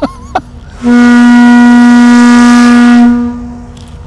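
The Battleship Texas's ship's whistle, blown on compressed air instead of steam after repairs, sounds one loud, steady blast of about two and a half seconds. The blast starts about a second in and trails off.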